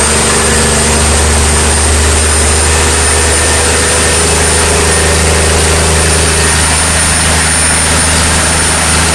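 Scania 13-litre XPI inline-six diesel race-truck engine running steadily under about 500 kW load on a test bench, with a steady high whine above the engine note.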